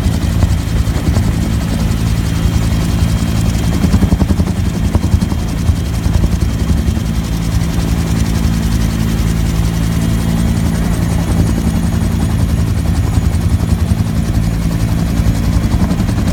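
Bell UH-1 "Huey" helicopter in flight, heard from inside the cabin: the steady, loud beat of its two-bladed main rotor over the running turbine engine.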